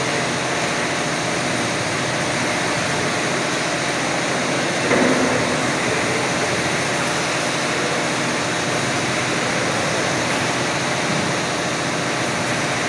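12x2 automatic cup sealing machine with its conveyor running: a steady mechanical whir and hiss, with a brief louder surge about five seconds in.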